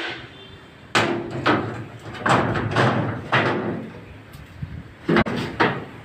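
Knocks and clattering of the steel pipes, props and wooden boards of concrete shuttering (formwork) being handled by workers, in a run of separate bangs, with a sharp impact about five seconds in.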